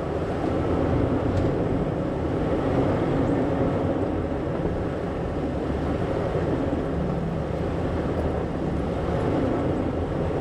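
Toyota 4Runner crawling slowly up a rocky trail, a steady low engine and drivetrain rumble with no sharp knocks.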